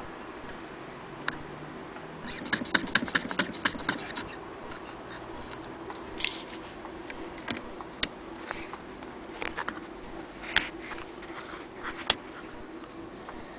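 Willcox & Gibbs hand-crank chain-stitch sewing machine clicking rapidly, about eight clicks a second for a second and a half, as it stitches. Then a few separate clicks and light knocks as the work is handled at the machine.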